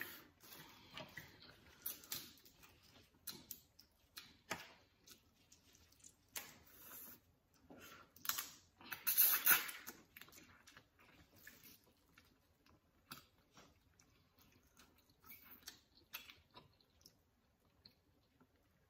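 Close-miked chewing and mouth sounds of people eating a seafood boil: irregular wet clicks and crunches, loudest about eight to ten seconds in.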